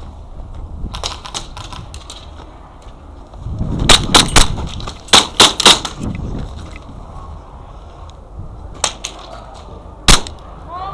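Airsoft gas blowback pistol shots, sharp snapping cracks: a quick group of about three, then about three more a second later, and a single loud shot near the end.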